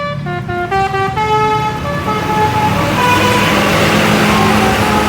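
Bus basuri musical horn playing a quick melody of short stepped notes, the telolet-style tune fading after about two seconds. Fainter horn notes and the bus engines and road noise continue under it, the noise swelling near the end.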